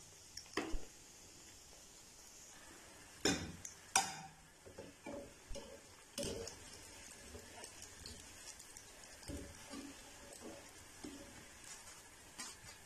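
Metal spatula and wire skimmer clinking and scraping against a frying pan while potato rings deep-fry, with a faint sizzle of hot oil underneath. The loudest knocks come about three and four seconds in and again about six seconds in, with lighter clinks between.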